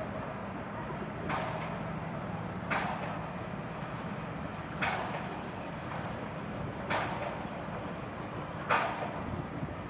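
Wheels clacking over the rails of a level crossing: five sharp clacks about two seconds apart over a steady low rumble.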